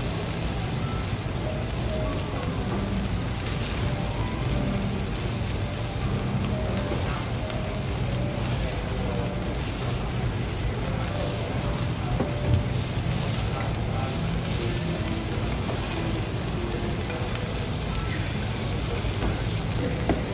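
Food sizzling on a teppanyaki iron griddle, a steady hiss, with one sharp tap about twelve seconds in.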